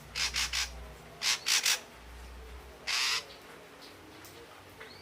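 Ashy drongo calling: two quick runs of three short, rasping notes, then a single longer rasping note about three seconds in, and a faint arched whistle near the end.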